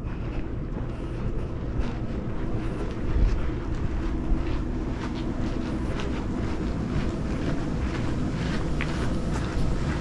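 Wind rumbling steadily on the microphone, with many faint, irregular ticks over it.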